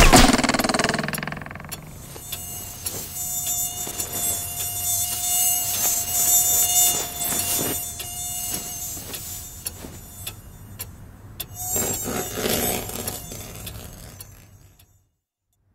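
Stylised buzzing of a cartoon insect in flight: a high, whining drone that swells and fades. Near the end it dies away to silence.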